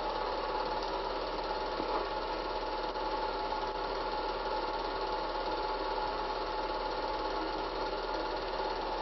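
Cine film projector running: a steady mechanical whirr with a constant low mains hum.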